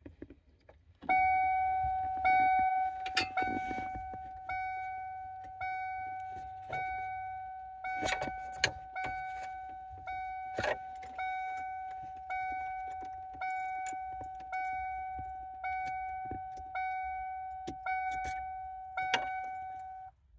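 A car's electronic warning chime dings steadily about once a second, each ding dying away before the next. A few metallic clinks of keys or tools sound over it.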